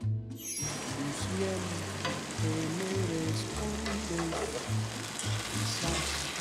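Spaghetti and garlic sizzling in oil in a frying pan while being tossed and stirred with tongs, a steady frying hiss. Background music runs underneath.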